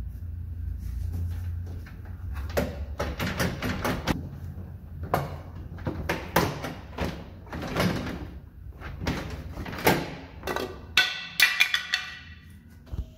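Interior door trim panel of a square-body Chevrolet C10 being worked loose and pulled off the door: a run of sharp snaps, knocks and rattles of the panel against the door shell, ending in a clattering burst as it comes free near the end.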